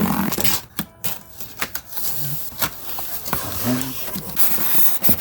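Cardboard engine box being opened and unpacked: rustling and scraping of the packaging, with a string of sharp clicks and knocks.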